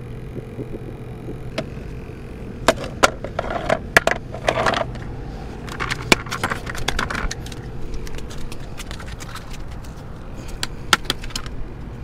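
Clicks and rattles of a plastic fish measuring board being handled as a speckled trout is laid on it to be measured. The clatter comes in two bunches and a few last clicks near the end, over a steady low rumble.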